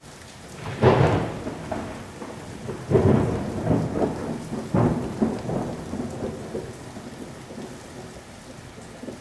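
Thunder rumbling over a steady rain hiss: three loud swells about two seconds apart, each dying away slowly, fading out toward the end.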